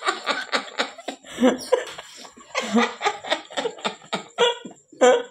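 A woman laughing in a long run of quick pulses, with short breaks, stopping just before the end.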